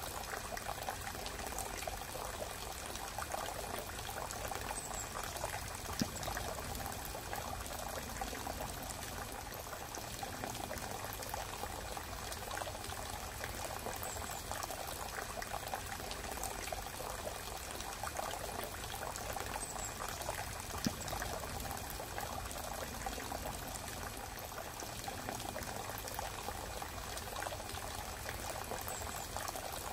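Running water: a steady, even rush of noise, with two faint clicks along the way.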